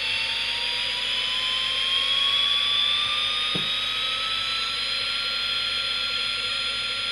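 Electronic sound effect from the Fisher-Price Alpha Probe's small speaker: a hiss with a whine that rises slowly in pitch for about five seconds and then holds steady. The toy's sound circuit is working again after its button contacts were cleaned of dust and grime. A light click sounds partway through.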